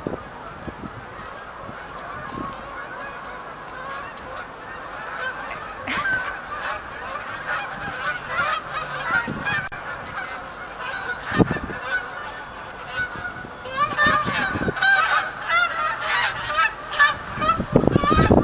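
A flock of geese honking as they fly overhead. The honks build from scattered calls into a dense chorus that is loudest over the last few seconds.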